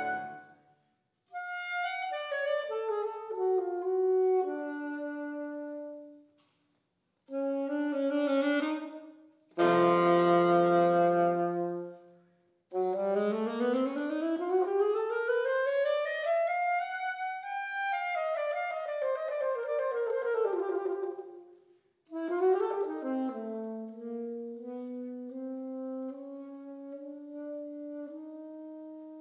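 Alto saxophone playing solo phrases separated by short pauses: a long smooth run climbs to a high note and falls back, then a low note is held and slowly rises.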